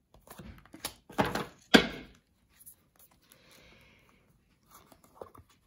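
Tarot cards handled over a wooden table: a few sharp taps and knocks in the first two seconds, the loudest near two seconds in. These are followed by a brief soft rustle of cards sliding through the hands and a few faint clicks near the end.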